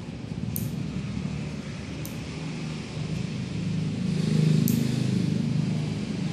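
Fingernail clipper snipping nails, three sharp clicks a second or two apart, over a steady low rumble that swells about four seconds in.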